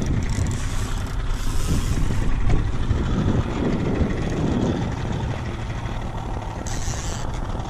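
Outboard motor running steadily at trolling speed, a low drone, with wind on the microphone. A brief hiss comes about a second and a half in and again near the end.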